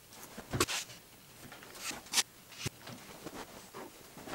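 Wooden boards and clamps being handled on a workbench during a glue-up: a few sharp knocks, the loudest about half a second in, with softer rubbing and scraping between.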